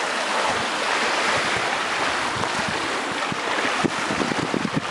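Wind blowing across the camera microphone as a steady rushing hiss, with gusts buffeting it in the last couple of seconds, over the splashing of kayak paddles in the pool.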